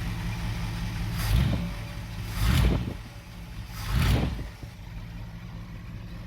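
Mopar 440 big-block V8 idling smoothly, its low-compression cylinder freshly repaired, with three short throttle blips that swell and fall back, about a second apart.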